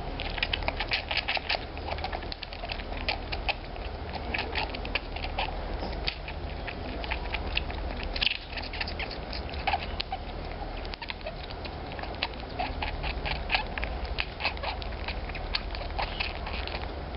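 Baby African clawless otter suckling from a milk bottle, making a rapid, irregular run of short high-pitched squeaks and clicks at the teat.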